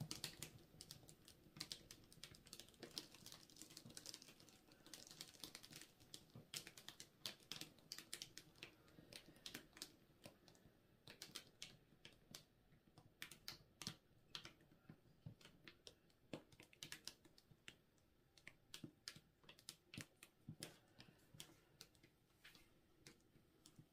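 Faint, irregular ticks and taps, a few a second, of acrylic paint dripping off the edge of a tilted canvas onto plastic sheeting.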